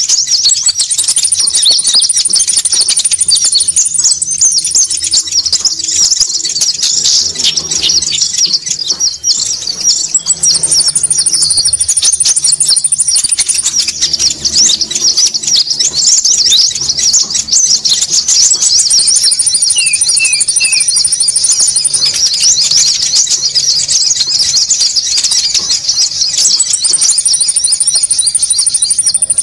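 Busy konin bird-lure calls: a dense, unbroken stream of rapid high chirps. A thin, higher trill comes in four times for a few seconds each.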